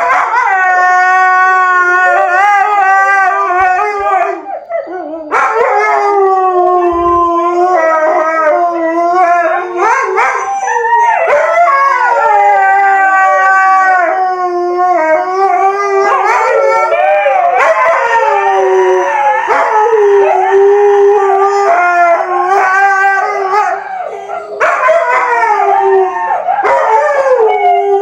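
Husky howling and yowling almost without pause in long, wavering calls whose pitch bends up and down, with short breaks about a third of the way in and again near the end.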